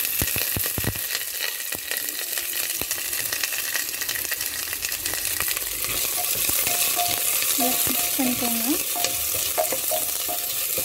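Sliced red onions sizzling in hot ghee in an aluminium pressure cooker, stirred with a wooden spoon that scrapes and clicks against the pot, with a few louder knocks about a second in.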